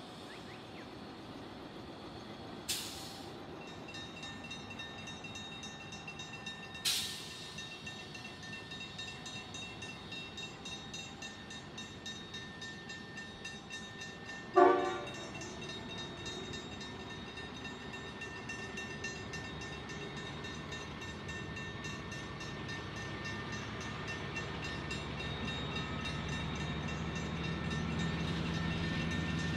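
Diesel locomotive horn giving one short, loud blast about halfway through, after two brief hisses. Near the end, the engine sound of an approaching diesel-hauled freight train grows steadily louder.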